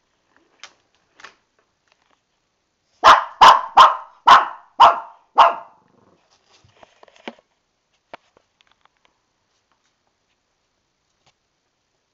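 Shih Tzu puppy barking: two faint short yaps, then a run of six loud, sharp barks about half a second apart, followed by a few faint clicks.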